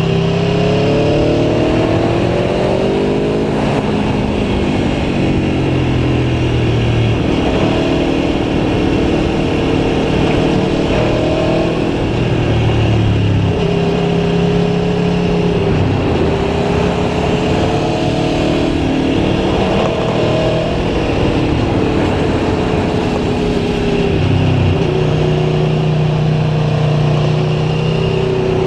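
Aprilia Tuono V4 1100 Factory's V4 engine pulling under way, its pitch climbing and dropping several times as it accelerates and shifts or backs off, over steady wind and road noise.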